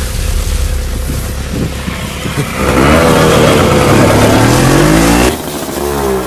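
Hero Honda motorcycle engine over a low rumble, then accelerating from about halfway through, its pitch climbing steadily before cutting off suddenly a little after five seconds in; the engine note comes back near the end.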